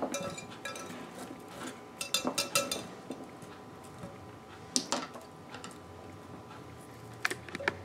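Wire whisk clinking against a glass measuring bowl as cauliflower florets are tossed in a thick cream sauce: a quick run of clinks about two seconds in, a single knock around five seconds, and a few more near the end.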